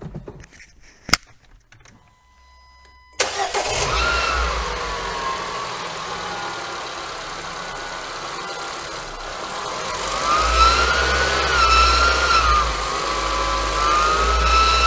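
Renault Duster's H4M 1.6 16-valve engine starting about three seconds in, after a click, then running with a whine over it; from about ten seconds in the revs rise and the whine climbs and wavers in pitch. The whine is traced by the mechanic to the alternator's front bearing.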